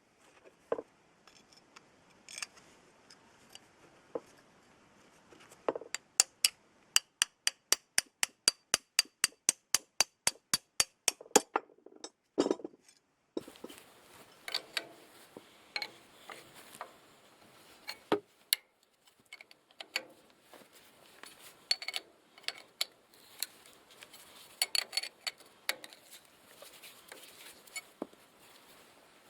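Metal tools and tractor axle parts clinking and knocking, with a run of rapid, evenly spaced clicks, about four a second, lasting some five seconds.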